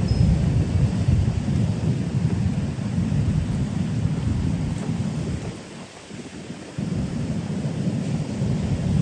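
Wind buffeting the microphone: a loud, ragged low rumble that eases off about five and a half seconds in and comes back suddenly a second later.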